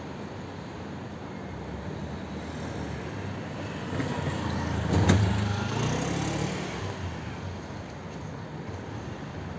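A motor vehicle passing by: a low rumble swells, peaks about five seconds in with a sharp click, and fades away.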